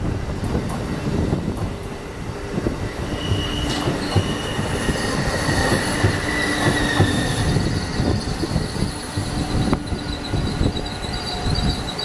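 Train rolling through on steel rails: a steady rumble and clatter of wheels, with high-pitched wheel squeal that comes and goes and grows stronger toward the end.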